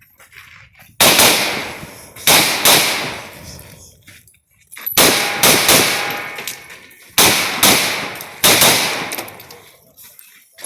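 Riley Defense AK-47 rifle firing about nine single shots in quick groups of two or three, each shot ringing out with a long echo.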